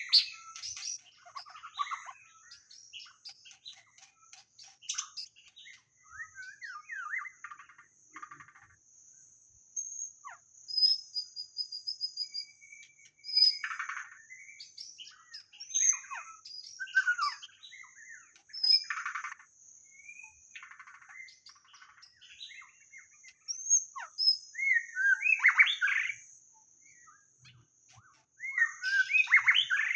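White-rumped shama singing: bursts of varied, rich whistled phrases, some sweeping up or down, separated by short pauses.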